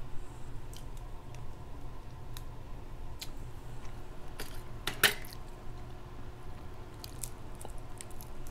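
Close-miked chewing and wet mouth sounds of a person eating crab legs, with scattered small clicks and one sharp crack about five seconds in.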